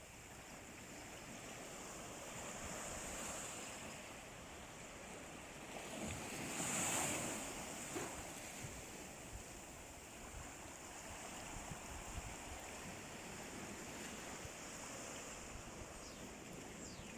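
Sea waves washing on the shore in a steady surf, with one wave breaking louder about six to seven seconds in.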